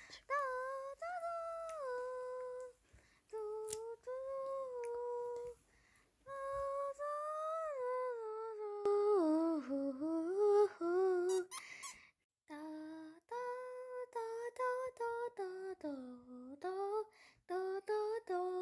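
A woman humming a slow, wordless tune in a fairly high voice, in phrases of held and gliding notes broken by short pauses. It is sung in place of background music.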